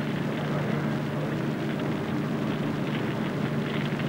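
Flames burning in a polypropylene-covered, polyurethane-foam couch: a steady rushing noise over a low hum, with light crackling coming in during the second half.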